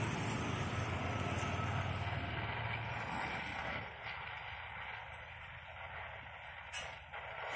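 TVS Apache 200 motorcycle's single-cylinder engine running through its exhaust, a steady low hum; about four seconds in it becomes much quieter.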